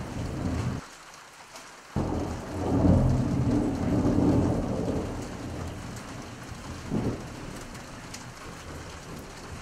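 Thunder rumbling over steady rain. The low rumble drops away about a second in, then a long roll swells back and slowly fades, with a short louder clap about seven seconds in.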